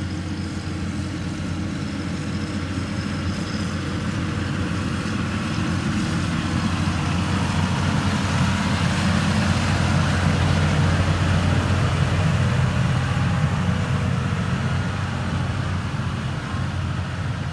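Heavy diesel engine of construction machinery running steadily, a low drone that grows louder toward the middle and eases off again.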